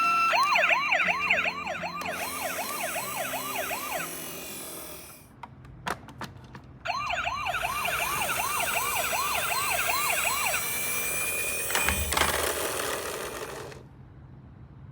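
Toy ambulance minicar's electronic siren sounding quick up-and-down sweeps, about three a second, in two runs of about four seconds each with a short gap between. A rushing hiss runs under the siren, and there is a knock about twelve seconds in.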